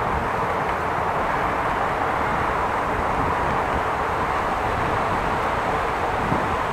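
Steady rolling noise of a bicycle ride: tyres running on the bike lane with wind rushing past, an even sound without breaks.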